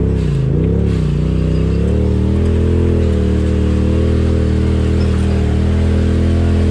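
Side-by-side UTV engine driving along a dirt trail. The revs rise and fall a couple of times in the first second, then hold fairly steady under light throttle.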